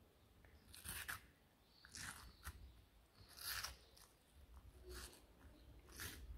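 Tortoise biting into a hand-held wedge of watermelon: a series of about six short crunches, roughly one a second.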